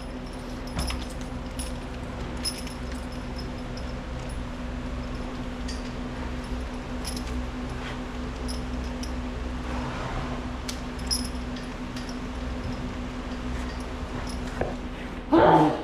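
Harness hardware clinking and jingling now and then as a draft-horse harness is handled and fitted, over a steady hum. About fifteen seconds in, a brief loud voice-like sound with a bending pitch stands out above the rest.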